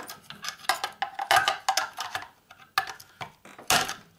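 Metal hand tools clicking and scraping against small brass parts inside a Bakelite case as the pieces are pried loose: a run of sharp clicks and scrapes, loudest about a second and a half in and again near the end.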